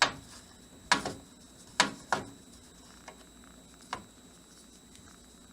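A series of sharp clicks and light knocks, about one a second, some with a short ring after them: tools and metal parts being handled while a PC's motherboard is taken out.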